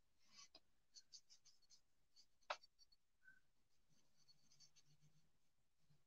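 Faint scratching of a marker tip stroking over cardstock while colouring and blending, with one sharp click about two and a half seconds in.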